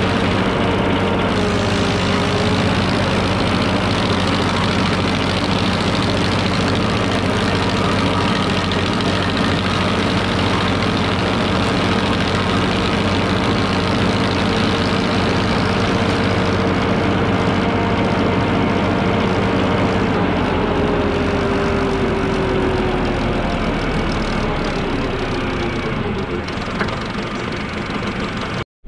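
Tractor engine running under load, driving a PTO-powered Mech Maxx TSG61 stump grinder as its cutter wheel grinds into a stump: a steady, dense mechanical din. Its pitch sags slightly a couple of times as the wheel bites in.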